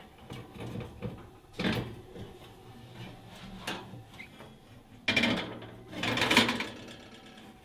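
Glass baking dishes being slid onto the metal racks of a gas range oven: knocks and scrapes, with two longer, louder scrapes about five and six seconds in.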